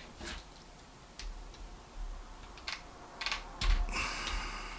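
Screwdriver working at the steel retaining clip on the back of a euro cylinder, giving scattered small metallic clicks and, near the end, a louder scrape.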